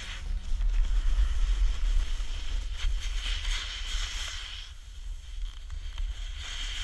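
Wind buffeting the action camera's microphone as a steady low rumble, with the hiss of a snowboard sliding over snow that swells and fades a few times.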